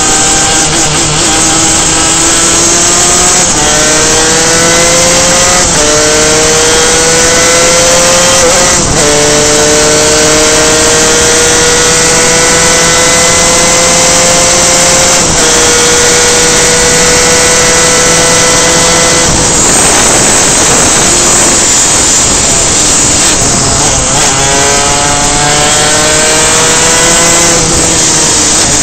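A superkart's two-stroke engine at racing speed climbs in pitch through gear changes at about three and a half, six and nine seconds, then holds a high, nearly steady note. Around twenty seconds it drops off as the throttle is lifted, then climbs through the gears again before falling away near the end.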